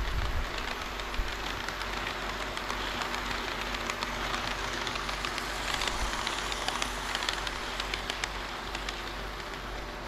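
HO-scale model train rolling along the track: a steady metallic rattle of wheels on rail with scattered light clicks and a faint motor hum, a little louder in the middle as it passes.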